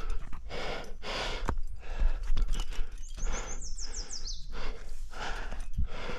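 A climber breathing hard and rhythmically, about one breath a second, while pulling through the moves, with low thumps on the microphone. About three seconds in, a bird sings a short run of high notes that fall in pitch.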